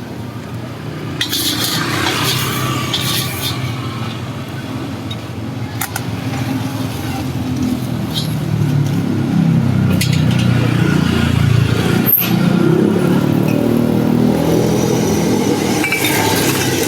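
Low rumble of passing motor vehicles, growing louder about halfway through, with a few sharp clicks near the start.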